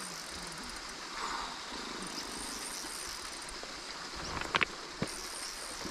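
Riverside ambience: a steady wash of noise with insects buzzing at one constant high pitch, and a couple of sharp clicks a little past the middle.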